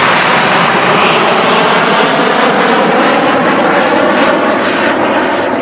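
A formation of Hawk Mk 132 jet trainers passing overhead: a loud, steady jet roar from their turbofan engines.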